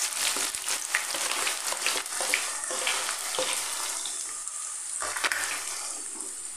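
Freshly added sliced raw onions sizzling in about a cup of hot oil in a kadhai: a steady frying hiss with many small crackling pops, easing a little toward the end.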